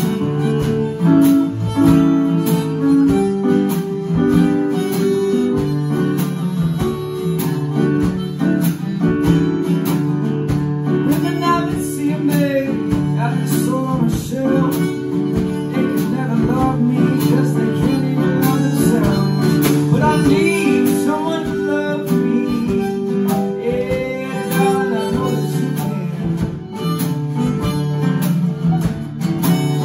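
A small band playing an instrumental jam: a harmonica plays the lead over acoustic guitar, a drum kit and an electronic keyboard.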